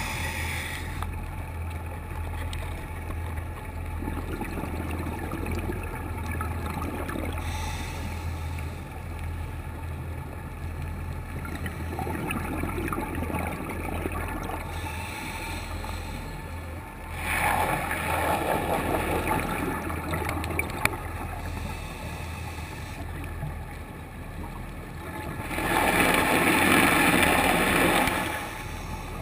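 Underwater sound picked up through a camera's waterproof housing: a steady low hum with a rushing, bubbling noise that swells every several seconds, loudest twice in the second half, typical of a scuba diver's exhaled bubbles from the regulator. The uploader puts the background rumble down to a boat on the surface.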